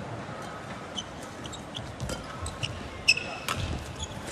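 Court shoes squeaking on the badminton court mat: a scatter of short, high chirps and a few light knocks as the players shift their feet, over a low, steady hall background.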